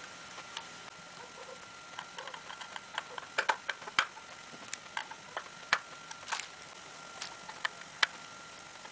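Irregular small clicks and taps of a hard plastic device case being handled while a small screwdriver works at a screw in its back. The clicks are sparse at first and come thicker and louder from about two seconds in.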